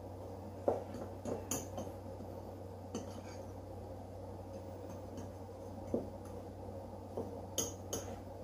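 A fork stirring a dry crumble mix of flour, brown sugar and chopped hazelnuts in a bowl, with scattered light clinks of the fork against the bowl over a steady low hum.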